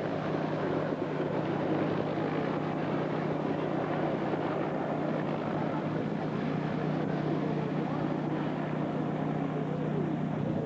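Helicopters flying overhead: a steady drone of engine and rotor noise.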